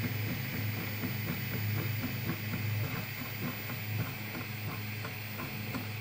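Prusa i3 3D printer running a print: a steady low hum and a steady higher whine from its motors and fan, with a run of quick, uneven ticks as the print head moves.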